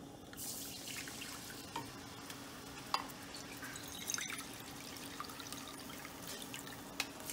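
Water pouring from a plastic jug into a ceramic bowl, a steady trickle with a few light clinks.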